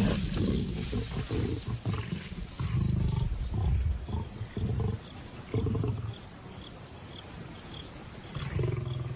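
Lions snarling and growling in repeated short, low-pitched bursts: a male lion's aggression over a kill as he forces lionesses off the carcass.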